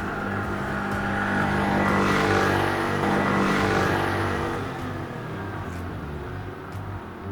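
Motorcycle engine running on a ride, growing louder around two seconds in and then fading away.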